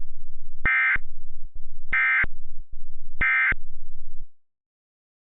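Emergency Alert System end-of-message data tones: three short, identical warbling bursts of SAME digital data, about a second and a quarter apart, marking the end of the tornado warning. A loud low buzz runs underneath and cuts off just after the third burst.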